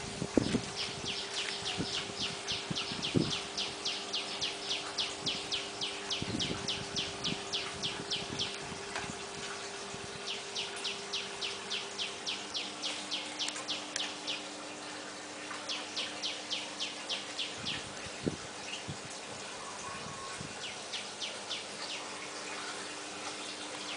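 Rapid high-pitched chirping, about four chirps a second, in runs of a few seconds broken by pauses, over a faint steady hum.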